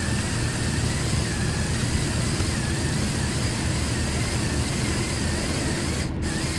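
Steady rumble and hiss of a LEGO Technic remote-control car driving through grass, heard from a camera mounted on its chassis, with a faint wavering whine from its two Power Functions L-motors.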